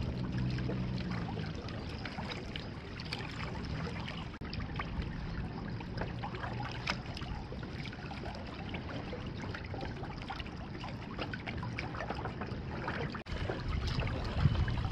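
Small waves lapping and trickling against the hull of a Hobie kayak as it moves through choppy harbour water, with many small splashes and ticks.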